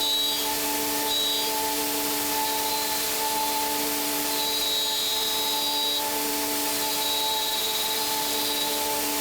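Five-axis CNC milling machine cutting: a steady spindle whine of several held tones over a constant hiss, with higher thin tones from the cutter coming and going.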